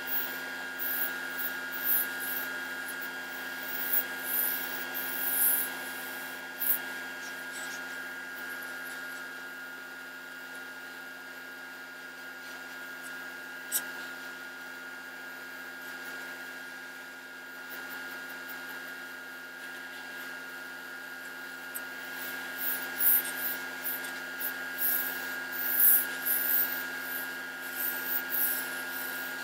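A steady machine hum made of several fixed tones, with irregular short hissing and rubbing noises in the first few seconds and again near the end.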